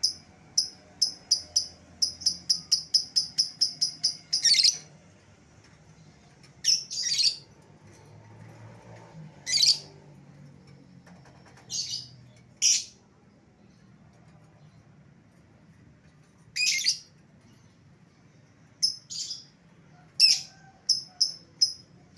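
Lovebird calling: sharp high chirps, a quick run of about six a second, then a series of longer harsh shrieks spaced a few seconds apart.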